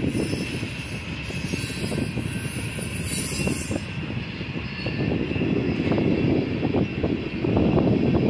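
Freight train's covered hopper and tank cars rolling past: a steady rumble of steel wheels on rail, broken by many short knocks.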